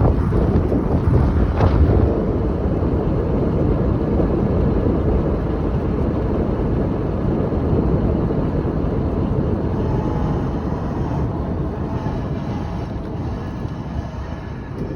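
Lectric Xpedition e-bike riding at speed, heard muffled from a phone in the rider's pocket: a steady rumble with wind noise and a faint motor whine. The owner finds the motor much louder than it should be and is unsure whether this is normal.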